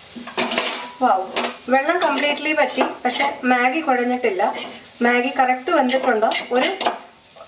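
Metal spoon stirring and tossing cooked Maggi noodles in an aluminium kadai, scraping against the pan in quick repeated strokes, over a light sizzle.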